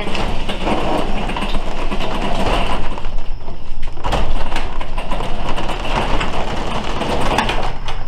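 Sectional steel garage door being lifted open by hand, its rollers rumbling along the metal tracks, with a few clanks from the panels and hinges.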